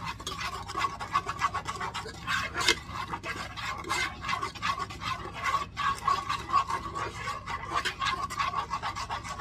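A silicone spatula stirring a broth-and-seasoning mixture in a pot, scraping and sloshing against the bottom and sides in quick, irregular strokes.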